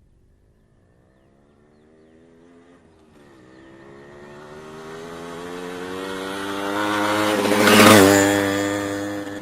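Motorcycle approaching from a distance under acceleration, its engine note rising and briefly dipping once as it shifts up a gear. It grows steadily louder, passes close by about eight seconds in, and then drops in pitch as it pulls away.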